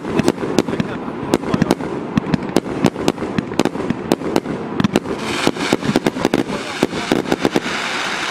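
Mars Pyrotechnics Jekyll & Hyde 98-shot fireworks cake firing rapid shots, about three or four sharp bangs a second. From about five seconds in, a dense crackling hiss of crackle stars builds under the bangs.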